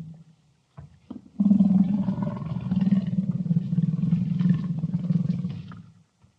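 Panther growling: after a brief pause with a couple of small catches of breath, one long, low, rasping growl-roar lasting about four seconds, fading out near the end.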